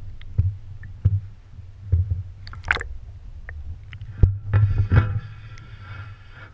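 Muffled water sloshing and dull knocks heard through a submerged camera's waterproof housing, with one sharp knock about four seconds in.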